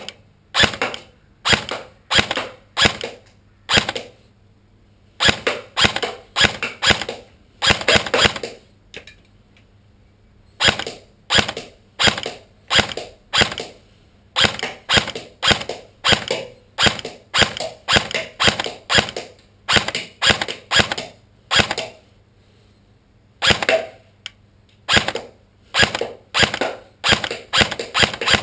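Tokyo Marui SR-16 M4 airsoft electric gun firing on semi-auto: a long series of single shots, each a short sharp snap of the motor, gearbox and piston, about two a second in runs with short pauses between them.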